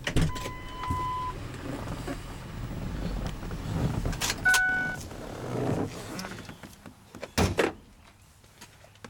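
Handling and rustling inside a Ford F-350 pickup cab as the driver's door is opened and he climbs out, with two electronic beeps: one lasting about a second right after a click at the start, and a shorter one about halfway. A sharp knock sounds near the end.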